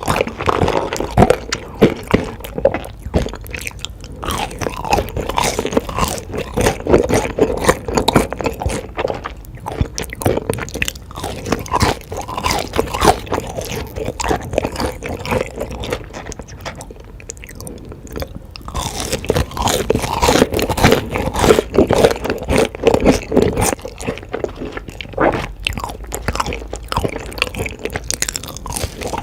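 Close-miked eating: a person biting into crunchy food and chewing with loud, irregular crunches, easing off briefly past the middle.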